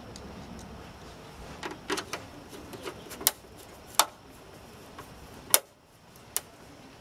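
Scattered sharp clicks and taps of a hand screwdriver working a screw in the scooter's plastic rear body panel, with a few louder clicks about three, four and five and a half seconds in.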